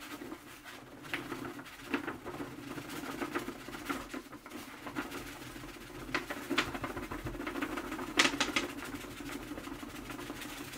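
Dry sand sliding off a sheet of paper into a glass tank: a soft trickle with paper rustling and scattered small ticks of grains, a busier cluster about eight seconds in. A steady low hum runs underneath.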